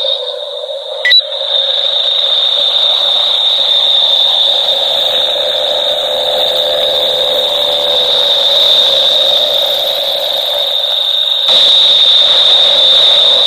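Steady high-pitched electronic alarm-like tone over a lower hum, with one sharp click about a second in; it steps up louder near the end.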